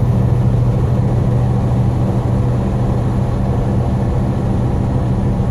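Steady low drone of a moving road vehicle's engine and road noise, holding even throughout.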